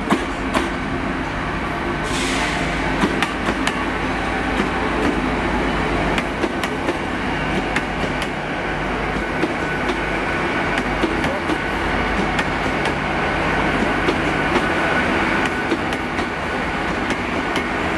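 GWR Class 800 train running past at station speed, its wheels clicking repeatedly over rail joints and pointwork under a steady rumble, with a faint steady whine and a rush of hiss that starts about two seconds in.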